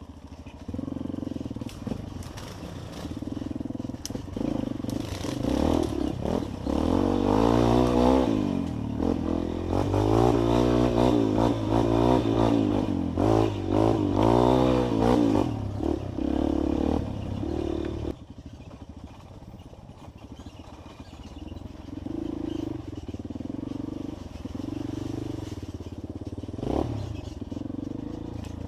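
Trail motorcycle engine revving up and down over and over, loudest in the middle, then running at lower revs and quieter for the last ten seconds or so.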